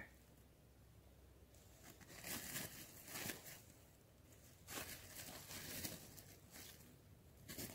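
Faint rustling and scraping of a hand working loose dry soil and grit, in five or six short bursts.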